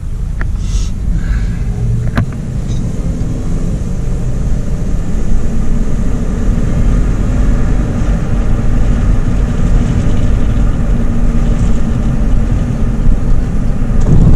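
Engine and tyre-on-road noise heard from inside a vehicle's cab while driving. The engine note rises as the vehicle accelerates a few seconds in, then settles into a steady cruising drone, with a single click about two seconds in.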